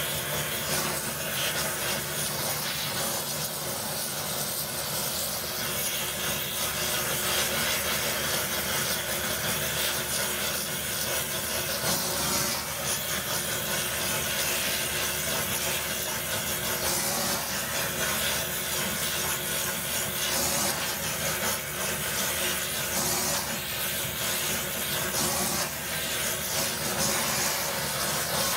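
Gas torch flame hissing steadily while it melts sterling silver in a crucible for centrifugal casting.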